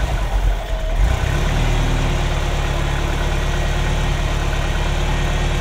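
Ferrari engine with Bosch K-Jetronic fuel injection idling with a vacuum hose off the cold-running valve, the open end drawing air, which upsets the idle. It is briefly uneven at the start, then runs steadily.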